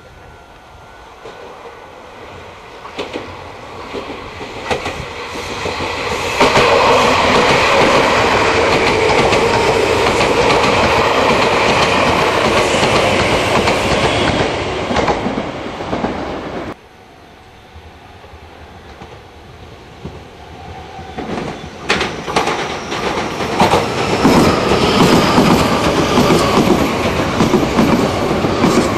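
Meitetsu electric express trains passing through a station at speed. First the red-and-white 1000 series Panorama Super rolls in, growing loud and running steadily until it cuts off abruptly at about 17 s. Then a second train, a blue-and-white Meitetsu 2000 series μSKY, approaches and passes close, its wheels clicking over the rail joints.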